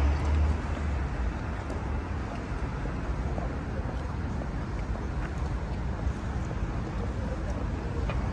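City street ambience: a steady wash of traffic noise, with a heavier low rumble that fades about half a second in.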